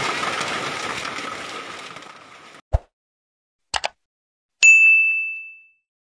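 Hailstorm noise fading out over the first two and a half seconds. Then comes a sound effect for an animated subscribe button: a low thump, a double mouse click, and a bright bell ding that rings out for about a second.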